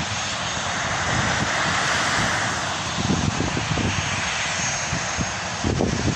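Airliner engines passing over, a steady engine noise that swells about one to three seconds in, with irregular low buffeting underneath.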